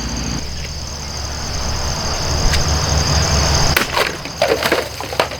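Cold Steel Ti-Lite XL folding knife chopping through a bottle about four seconds in: one sharp crack, then several quick knocks as the pieces are struck and fall. Before the cut, a steady low rumble of nearby construction machinery runs under a steady high hum.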